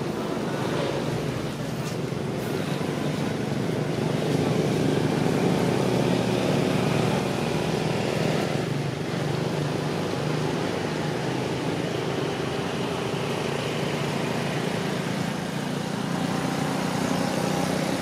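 Steady road traffic noise: vehicle engines running, a continuous hum with a wash of road noise.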